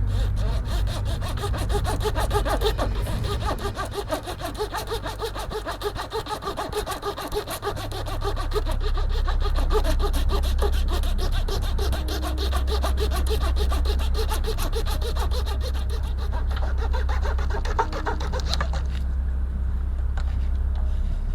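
Small hand saw cutting through a thin wooden model grating with quick, rhythmic back-and-forth strokes, stopping near the end, over a steady low hum.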